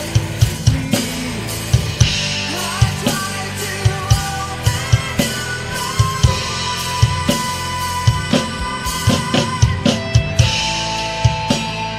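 Acoustic drum kit with Sabian cymbals played live over a recorded progressive metal song: quick kick and snare hits throughout, with cymbal crashes washing over the track about two seconds in and again near the end.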